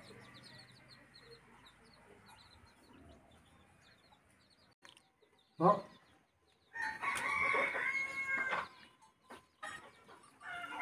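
A rooster crows once, a long held call a little past halfway through, after a short single squawk, over faint small-bird chirps.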